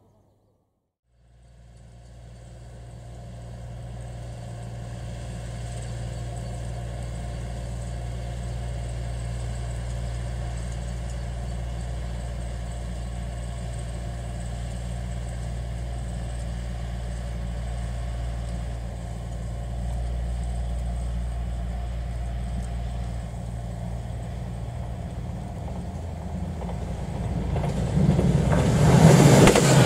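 Diesel engines of a JR Shikoku 2000 series tilting express train running at speed: a steady low drone that swells in about a second in and holds. Near the end it gives way to the louder rush of the train arriving close at high speed.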